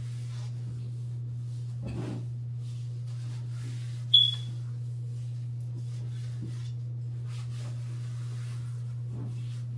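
Faint taps and handling noises of flat-pack furniture parts and hardware during assembly, with one sharp, briefly ringing clink about four seconds in, over a steady low hum.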